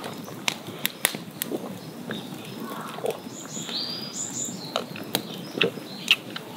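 A person drinking in long gulps from a glass, with wet swallowing sounds and sharp clicks throughout. A bird calls briefly about halfway through.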